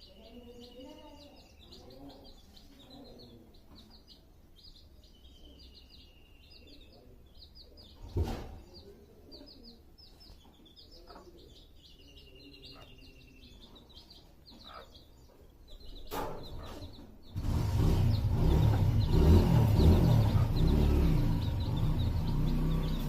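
Chicks peeping in rapid, high, short chirps, with a few longer falling whistle-like calls among them and a couple of sharp clicks. About three-quarters of the way in, a loud rumbling noise starts and drowns them out.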